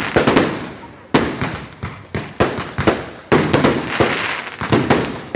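Fireworks going off in quick succession: many sharp bangs, some in rapid clusters, each trailing off in an echo.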